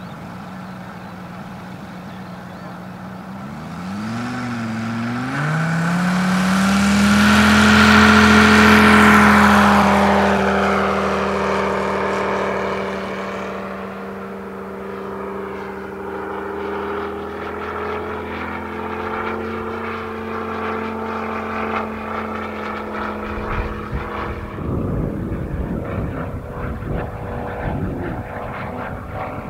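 Sea Fury scale model's Moki 250cc five-cylinder radial engine, geared down to a large five-blade propeller, opening up from idle for the takeoff run. Its pitch rises about four to six seconds in and it is loudest around eight to nine seconds, then it runs steadily at power as the plane climbs away.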